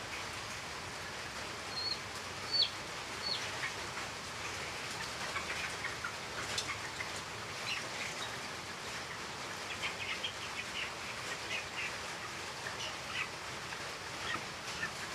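Chicks peeping in short, scattered calls over a steady hiss, with a few high peeps that drop in pitch a few seconds in and more frequent calls in the second half.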